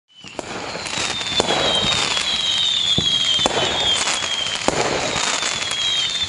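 Fireworks sound effect fading in over the first half second after silence: a steady barrage of bangs and crackling, with repeated high whistles that fall slightly in pitch.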